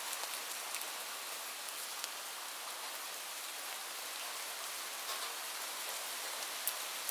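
Light, steady rain falling on a surface: an even hiss with occasional sharper individual drop ticks.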